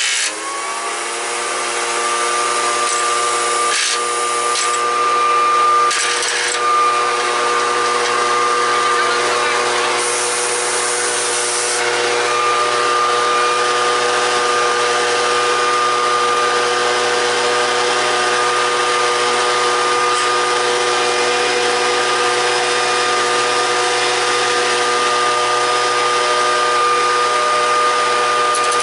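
Homemade turbo stove (turbokamina) running: a loud, steady howl made of several tones at once, rising in pitch over the first half second and then holding level, over a rushing hiss that swells a few times.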